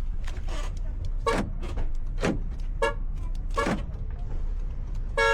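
Idling engine of a 2016 SUV, just started with a freshly programmed key, running as a steady low rumble. Several short sounds fall in pitch over it, and a car horn beeps right at the end.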